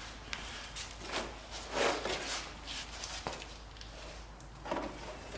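Scattered handling noises: short scrapes, rustles and a few sharp clicks as engine parts and tools are moved about, the longest scrape about two seconds in.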